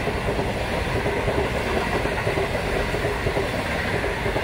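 Stainless-steel passenger carriages rolling past close by: a steady rumble of wheels on rail with a thin, steady whine above it.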